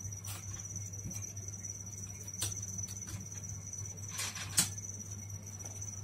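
A few sharp taps as a canary hops about its wire cage, the loudest about four and a half seconds in, over a steady high-pitched whine and a low hum.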